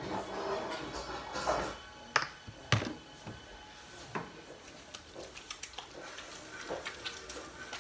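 Background music over dishwashing at a kitchen sink: dishes clinking, with two sharp knocks a little after two seconds and near three seconds in, then scattered lighter clicks.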